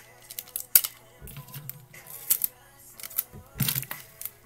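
Scattered sharp clicks and taps of small craft items (paper, tape, a tape roll) handled on a table, with a cluster of them near the end, over faint background music.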